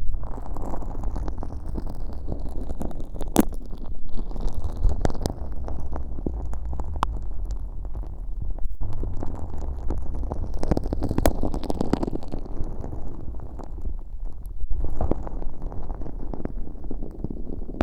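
Ear pick working sticky, firm slime packed with fine glitter in the left ear of a bare microphone, with no plastic wrap over it. It makes a continuous close squelching, sticky rumble broken by many sharp crackles and pops.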